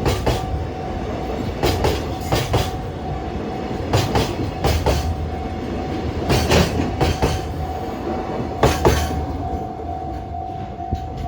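Koki container wagons of a freight train rolling past, their wheelsets clacking over rail joints in pairs every second or so over a steady rumble, with a level crossing alarm ringing on a steady tone. The clacking stops about nine seconds in as the last wagons clear, leaving the crossing alarm.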